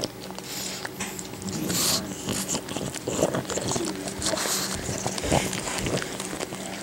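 A pug mother licking and nuzzling her newborn puppies: wet, crackly licking and sniffing sounds, with a few short wavering squeaks from the puppies about three to four seconds in, over a faint steady low hum.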